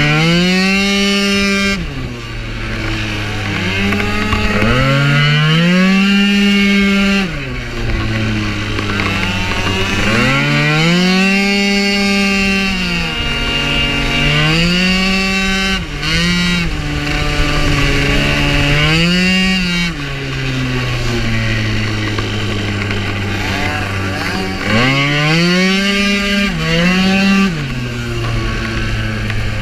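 Tuned Piaggio Zip scooter's 95cc two-stroke kit engine, heard on board, revving hard and dropping back again and again as the throttle opens and closes through the corners. Each time the note climbs steeply, holds high for a second or two, then falls to a low steady drone.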